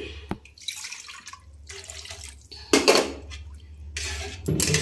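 Flat metal spatula stirring milk into roasted semolina in a kadhai: liquid sloshing and splashing, with scrapes and knocks of the spatula against the pan, the loudest about three seconds in.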